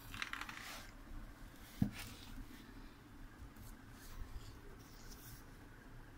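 Cardboard box being handled and opened by hand: scraping and rustling at the start, a single sharp knock a little under two seconds in, then faint scratches.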